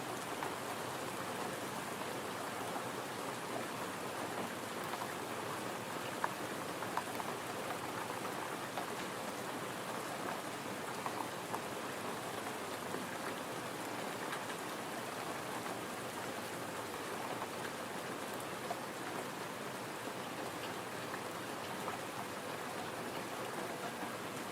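Gentle rain falling steadily, an even hiss with scattered single drops standing out.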